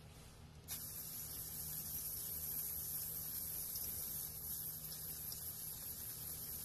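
CryoIQ PRO cryo pen with a D3 tip spraying its cryogen onto a skin papilloma: a steady hiss that starts suddenly about a second in, the sound of a freeze cycle under way.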